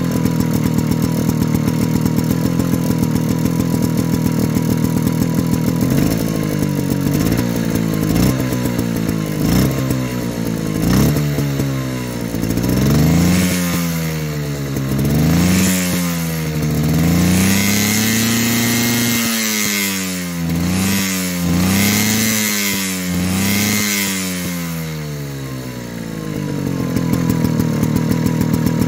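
Fichtel & Sachs ST-50 two-stroke stationary engine idling steadily, then revved by hand at the throttle: short blips from about six seconds in, then several longer rises and falls in engine speed, before it settles back to a steady idle near the end.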